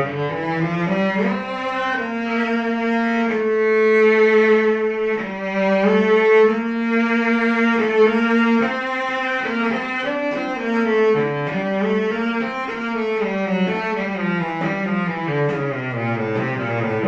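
Solo cello bowed in a slow melody, one note at a time: it climbs over the first couple of seconds, stays in the middle of its range, then steps back down to a low note near the end.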